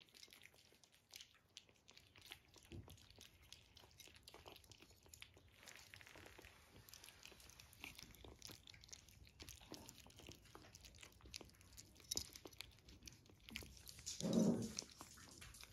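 Puppies eating soft meaty chunks from a plate: faint wet chewing, lapping and small clicks of teeth and food on the plate. One short, louder low sound comes about a second before the end.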